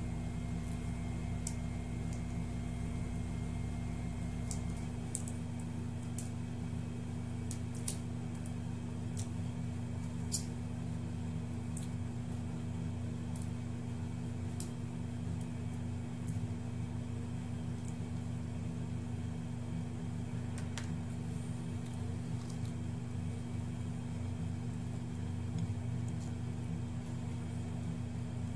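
Steady mechanical hum made of several low tones, with a deeper rumble under it that drops out about five seconds in. Faint scattered clicks from eating by hand and peeling shrimp.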